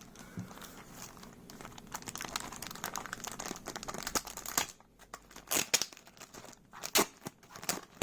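Plastic packaging and packing tape crinkling and tearing as a keyboard is pulled out of its wrapping, a dense run of crackles with a few sharper, louder snaps in the second half.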